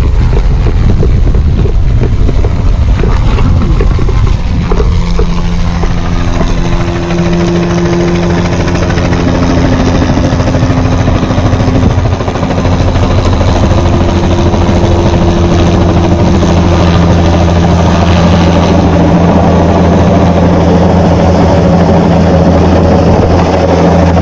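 Helicopter running close by, loud: a fast rotor chop at first, settling about four seconds in into a steady low drone from the rotors and engine.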